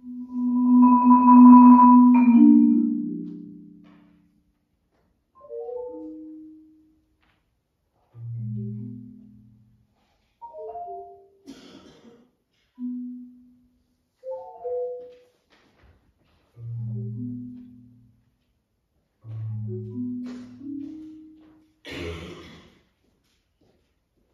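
Solo marimba playing slow, sparse phrases of low, ringing notes separated by pauses, loudest in a sustained low chord over the first few seconds that dies away. A sharp knock sounds about halfway through and another near the end.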